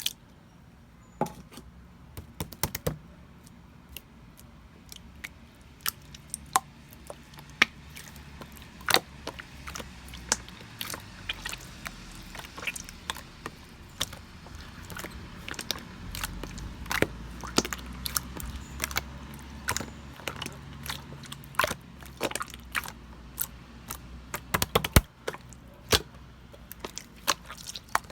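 Clear slime being squeezed and stretched by hand, making frequent sharp, irregular clicks and pops.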